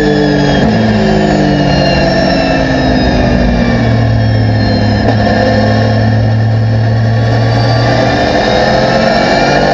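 Porsche 911 GT3 R race car's flat-six engine heard from inside the cockpit. Its revs fall in steps as the car brakes and shifts down, hold low and steady through a slow corner, and start to rise again near the end as it accelerates out.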